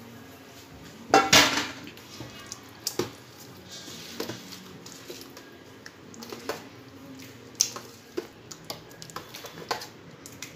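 A metal ladle scraping and knocking against a large metal cooking pot as thick khichda of lentils, grains and meat is stirred. The clinks come irregularly, and the loudest clatter is about a second in.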